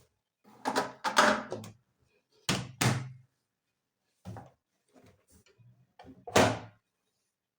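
A series of knocks and thuds from handling at a plastic twin tub washing machine after its spin cycle, about six at irregular intervals with a few fainter ones in between.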